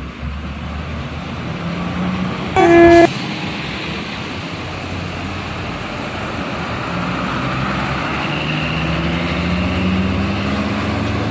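A bus's basuri air horn gives one short, very loud blast about two and a half seconds in, over the steady running of a bus engine and traffic. Later the engine note rises gradually as the bus accelerates.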